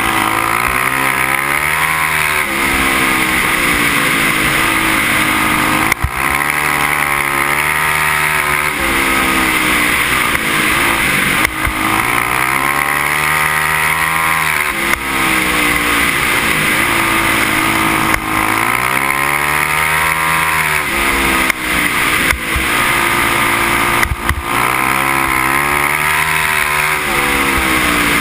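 Racing engine heard onboard during a dirt-oval race, revving up along each straight and easing off into each turn, a cycle that repeats about every six seconds, over steady wind and dirt noise.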